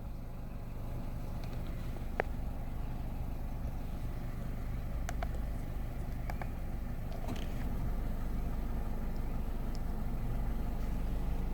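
2013 Nissan Rogue's engine idling with a steady low hum, with a few faint clicks, the clearest about two and five seconds in.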